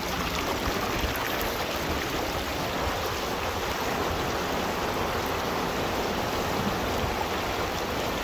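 Mountain creek water rushing steadily, a constant even wash of running water.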